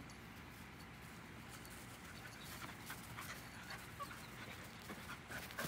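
Standard poodle puppy and an older poodle playing on grass: faint dog panting, with a few short, high whines scattered through the middle and later part.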